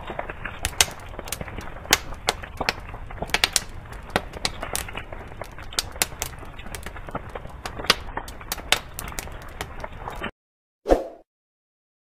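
Fire crackling sound effect: a steady rush of flame with irregular sharp crackles and pops. It cuts off suddenly about ten seconds in, followed by a single short thump.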